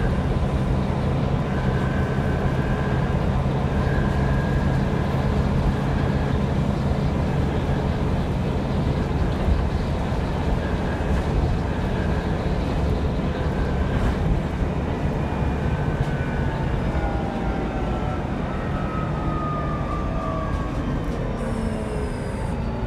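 Single-deck bus heard from inside the passenger saloon while under way: steady engine drone and road noise. In the second half a whine falls steadily in pitch.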